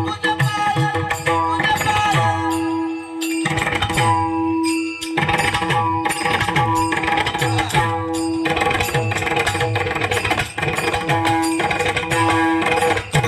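Mridang (pakhawaj) drumming, a run of strokes with bass notes that bend downward, over a steady held note and sustained chords. This is a drum passage with no singing.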